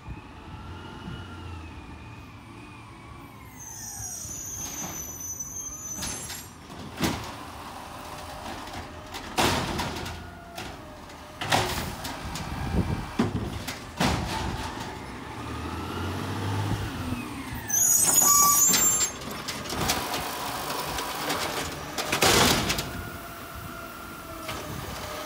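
Automated side-loader garbage truck working its way up the street: the diesel engine runs under a whine that rises and falls, air brakes hiss twice, and a string of loud bangs and clanks sound as it works the bins.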